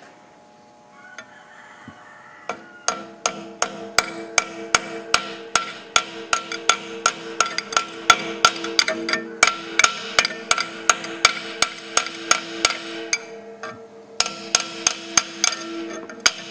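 Metal file tapping a crankcase breather vent into place on an old piston air compressor: a steady run of sharp metallic taps, about three a second, with a ringing tone under them. There is a short pause about thirteen seconds in, then a few more taps.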